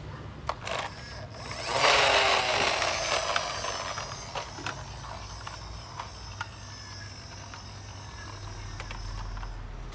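Plastic toy skip-loader truck rolling on a tiled floor: a loud gear whir starts about two seconds in and winds down over the next few seconds, with scattered plastic clicks and knocks.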